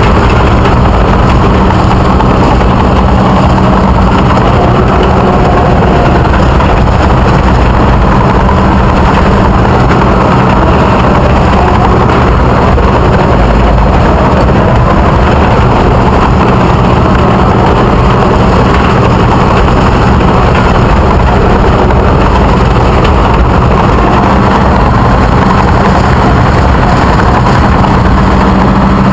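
Full-size Caterpillar bulldozer's diesel engine running steadily and loudly, heard up close from on the machine: a constant low drone with a rumbling haze.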